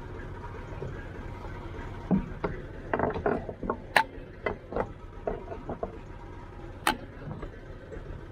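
Massey Ferguson 254S tractor engine idling steadily, with a scatter of sharp clicks and knocks as the trailer's lighting cable is handled. The two loudest knocks come about four and seven seconds in.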